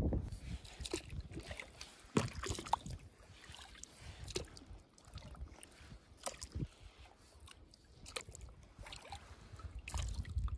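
Small water sounds on a stand-up paddleboard: lapping and dripping against the board, with scattered sharp clicks and knocks.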